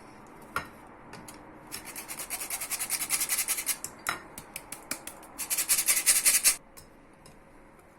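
Flour being sifted through a sieve: two runs of rapid rasping, scratchy strokes, the second shorter and louder, with a few single clicks between.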